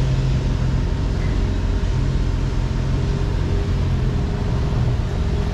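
Outboard motor on an inflatable boat running steadily under way, a continuous low hum with water rushing along the hull.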